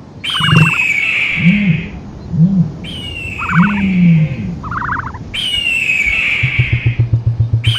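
Reconstructed microraptor call, a bird-like creature sound effect: a high, falling squawk repeats about every two seconds, each time with a short burst of rapid chattering pulses and low rising-and-falling notes. From about six seconds in, a low, fast pulsing buzz runs underneath.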